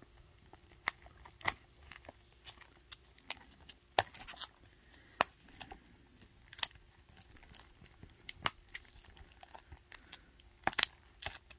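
Fingers picking at the plastic shrink-wrap on a Blu-ray case, trying to peel it off: scattered faint crinkles and clicks at irregular intervals, with a louder cluster near the end.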